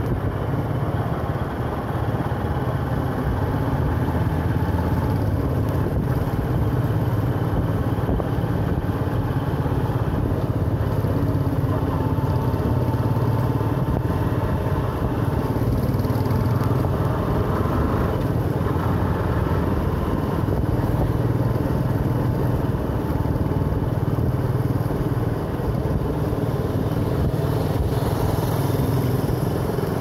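Hero Xtreme motorcycle's single-cylinder engine running steadily while riding at road speed, with wind rushing past.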